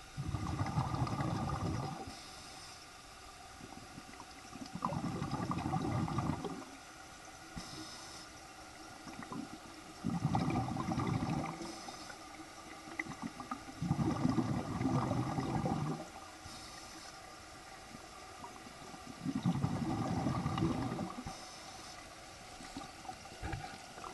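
Underwater breathing: five bursts of bubbling exhaled air, each about two seconds long, coming roughly every five seconds, with a faint hiss of inhalation between them.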